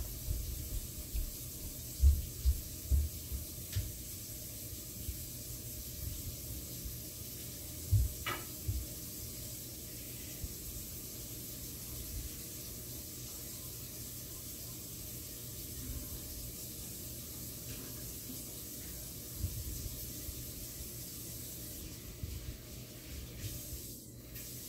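Steady background hiss with several dull low thumps during the first nine seconds and a few faint clicks later on.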